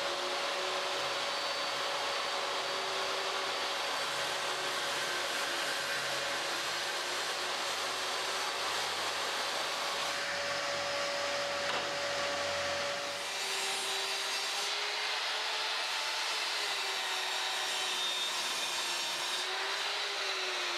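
Benchtop table saw running and ripping a hardwood board, with a steady motor tone over the cutting noise. About thirteen seconds in this gives way to a sliding mitre saw cutting through a board, its pitch wavering as it cuts.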